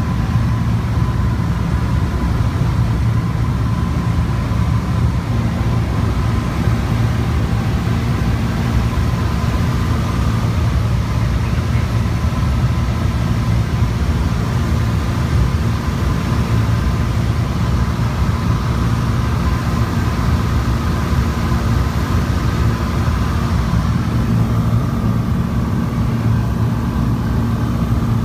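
Steady drone of a Piper Saratoga's six-cylinder piston engine and propeller in flight, heard inside the cabin: a deep, even hum with a faint higher whine over it.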